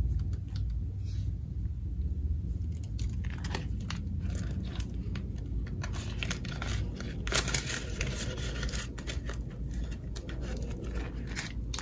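Paper banknotes and clear plastic binder pockets rustling and crinkling as bills are slid in and a pocket is turned and opened, in scattered short crinkles.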